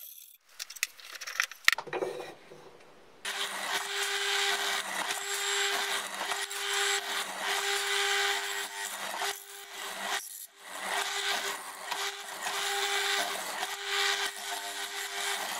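Benchtop hollow-chisel mortiser: a few knocks and clicks as the timber is set in place, then about three seconds in the motor starts and runs with a steady hum while the square chisel and auger are plunged repeatedly into the wood, chewing out chips. The cutting pauses briefly about ten seconds in and then carries on.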